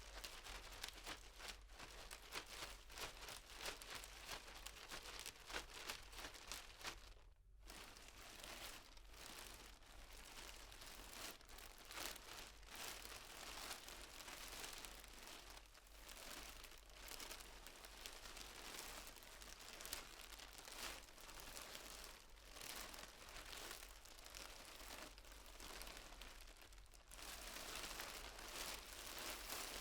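Plastic bag crinkling and rustling continuously as it is carried by someone walking, heard from medium distance. The sound breaks off briefly twice, about seven seconds in and again near the end.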